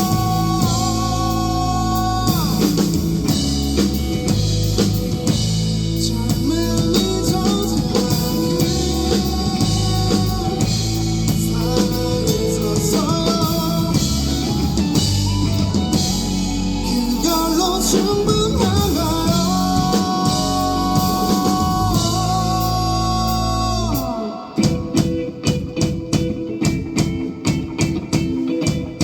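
Rock band playing live: singing over electric guitar, bass and drum kit. Near the end the full sound drops away to short, evenly spaced hits.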